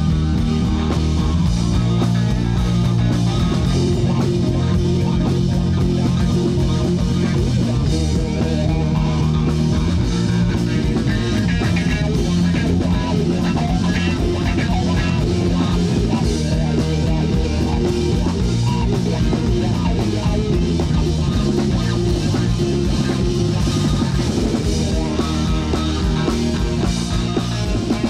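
Rock band playing, with electric guitar, bass guitar and drum kit at a steady, full level.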